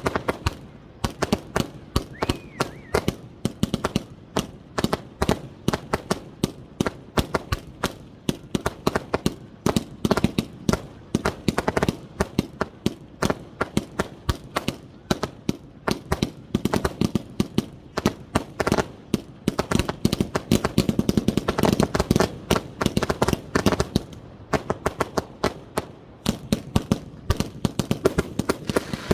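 Professional 1.3G display fireworks firing from 100-shot basins: a rapid string of sharp bangs, several a second, as shells launch and burst. The firing is densest about two-thirds of the way through.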